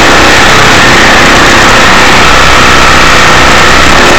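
Honda CRF150F single-cylinder four-stroke engine running loud, fast and steady, heard close at the open carburetor intake. The throttle slide is closed, so this is the runaway high idle that the owner ties to the carburetor flooding.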